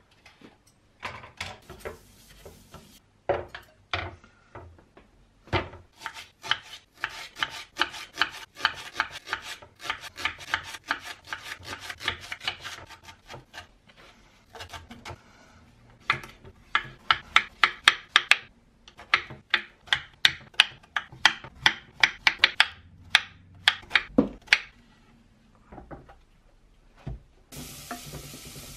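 A kitchen knife chopping vegetables, likely leeks and courgettes, on a wooden cutting board, in long runs of quick, even strokes of several knocks a second, with short breaks between the runs.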